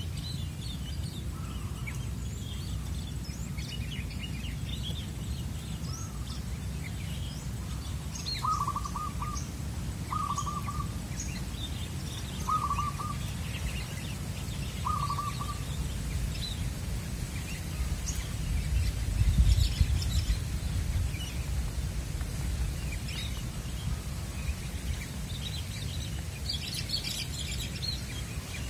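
Zebra dove (perkutut) cooing four times, short trilled coos a couple of seconds apart in the first half. Small birds chirp high and thin throughout over a steady low rumble that swells briefly past the middle.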